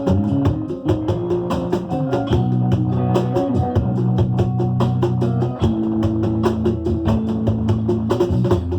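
Batucada music: quick, even drum and percussion strokes over held low notes that shift in pitch every second or so.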